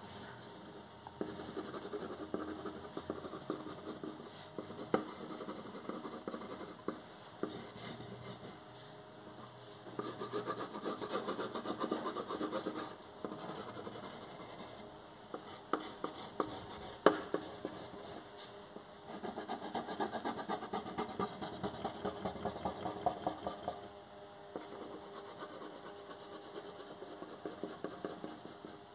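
Pencil scratching on paper in quick back-and-forth hatching and shading strokes. The strokes come in bursts of a few seconds with pauses between, and there is one sharp tap partway through.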